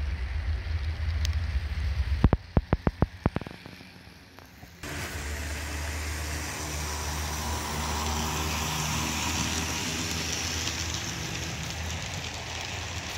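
HO scale model freight train rolling on the layout's track, a steady low hum with wheel noise. A quick run of about eight sharp clicks comes a little over two seconds in. After a short quieter stretch, a steady hum and rolling rush set in abruptly and carry on.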